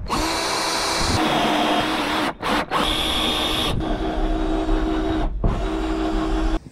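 Cordless drill running steadily as a twist bit bores through a boat's fibreglass roof, with the motor's whine held throughout. It stops briefly twice, about two and a half and five and a half seconds in.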